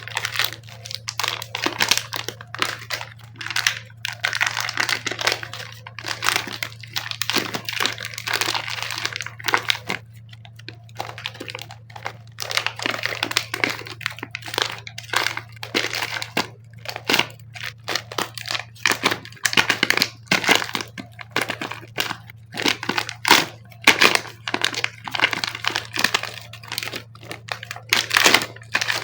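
Close-up crinkling and crackling of plastic packaging, with some tearing, as packs of air-dry clay are opened and handled; the crackles come in irregular flurries with brief pauses, over a faint steady low hum.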